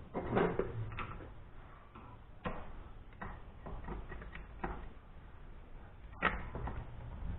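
Scattered light clicks and knocks, about half a dozen spread over several seconds, from small bolt hardware being handled and test-fitted by hand. The sharpest knock comes near the end.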